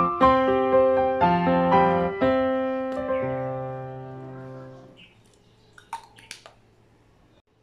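Gentle background piano music: a few phrases of held notes, ending on a low chord that fades out about five seconds in. A few faint clicks follow.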